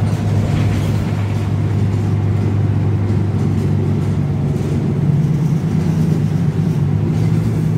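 Transjakarta city bus running along the road, heard from inside the passenger cabin: a steady low engine and road drone.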